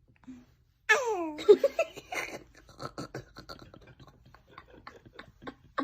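A baby's high little vocal cry gliding sharply down in pitch about a second in, followed by a string of quick little mouth clicks, snuffles and squeaks.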